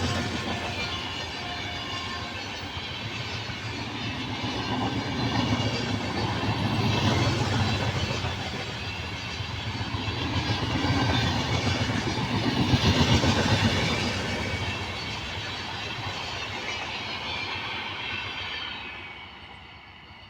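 Indian Railways train running along the track: a continuous rumble of wheels on rails that swells several times and fades away near the end.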